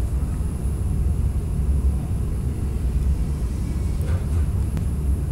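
Steady low rumble of background noise, uneven in level, with no distinct events.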